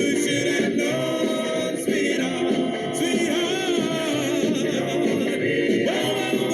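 Doo-wop vocal group singing in close harmony, with a wavering lead voice over held backing notes.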